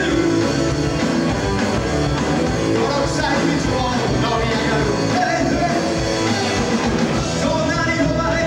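Rock band playing live, with a singer over electric guitar.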